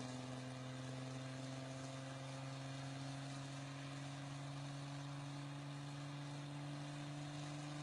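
Car engine running at a steady speed, a fairly quiet, even drone that holds one pitch.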